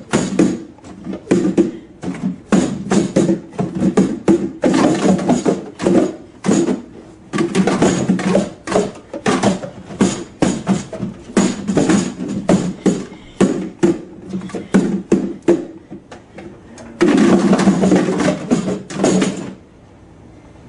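Speed Stacks plastic cups clattering in rapid runs of clicks as they are stacked up and down in sport stacking. The clatter stops abruptly near the end as the final stack is completed and the timer stops.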